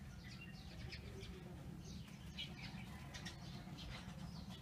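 Faint bird chirps in the background: short, high calls scattered through the seconds, over a low steady rumble.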